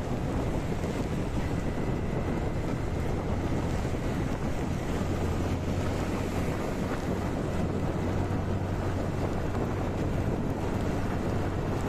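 Steady wind rush on the microphone of a moving motorcycle, over the engine's low, even drone, which grows a little stronger about five seconds in; the bike is riding on a rain-soaked road.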